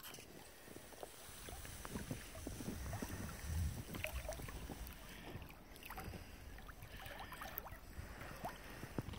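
Gusty wind rumbling on the microphone, strongest about three to four seconds in, over faint gurgling and splashing of water from a pond bubbler keeping a patch of the frozen pond open.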